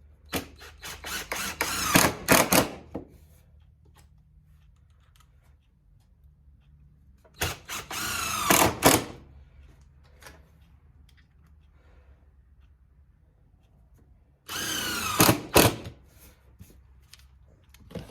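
Power drill driving screws into wood in three bursts of one to three seconds each, the motor's pitch sliding as each screw goes in. The first burst comes in several short trigger pulses.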